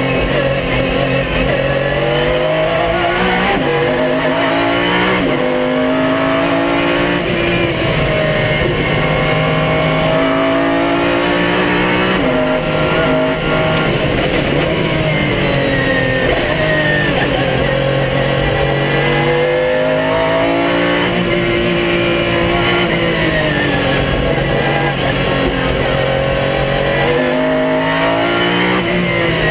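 Pagani Zonda R's 6.0-litre Mercedes-AMG V12, heard from inside the cockpit at racing speed. Its pitch climbs through the revs and drops back at each quick upshift, and falls away a couple of times under braking and downshifts.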